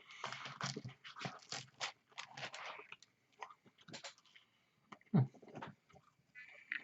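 A person chewing and crunching a mouthful of food close to the microphone, with irregular wet mouth noises and bites.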